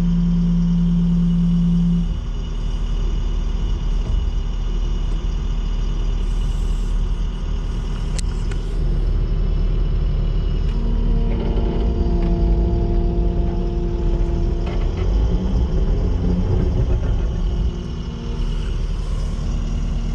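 Kubota SVL97-2 compact track loader's four-cylinder diesel engine running. Its note changes about two seconds in, and from about eleven seconds in a higher tone rides on it for a few seconds.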